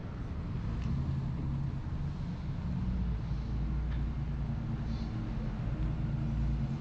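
Car engine running with a steady low hum and road noise as the car moves slowly.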